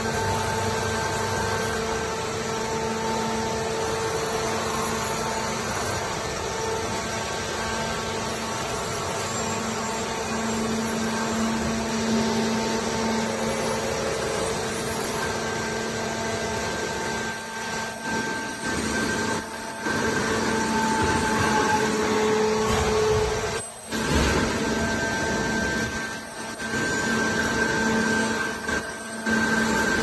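Horizontal baling machinery running: a steady mechanical drone with a few steady humming tones over it. Several times in the last third the noise drops away briefly and comes back.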